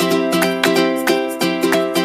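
Background music: a plucked-string instrument picking notes in a quick, even rhythm.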